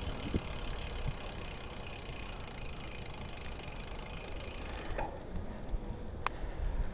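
Bicycle rolling along a trail: a steady rumble of tyres and wind on the microphone, with a brief high squeak about six seconds in.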